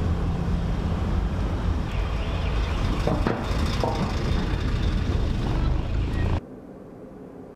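Steady low rumble of a car driving, heard from inside the cabin, as it rolls up the loading ramp onto a ferry's car deck. About six seconds in the noise cuts off suddenly, leaving a much quieter hum.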